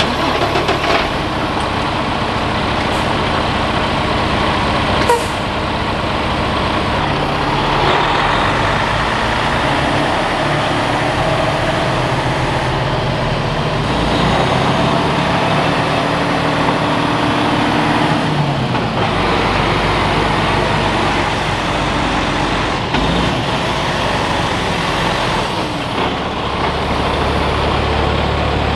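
Diesel engine of a flatbed semi truck running as the truck drives and manoeuvres slowly along a gravel driveway, its engine pitch rising and falling as it moves.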